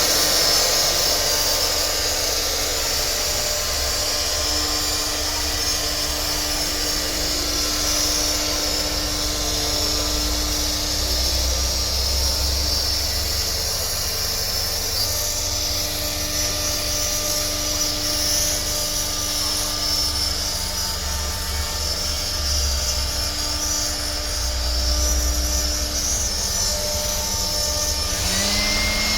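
CNC machine running steadily while cutting a design, a constant whirring with a strong high hiss and several steady tones. Near the end a new tone slides up and then holds.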